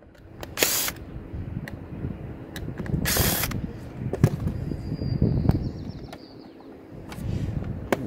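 Cordless drill/driver running in short spurts as it backs screws out of a sheet-metal control-board cover, with ratcheting clicks between the spurts.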